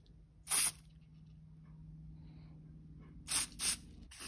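Short hisses of aerosol carburettor cleaner sprayed through a straw nozzle into a blocked carburettor main jet to clear it: one burst about half a second in, then two quick bursts near the end.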